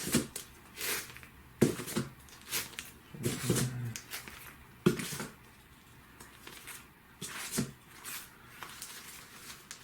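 Bagged and boarded comic books being flipped through and set down: irregular crinkles and taps of the plastic sleeves, most of them in the first five seconds.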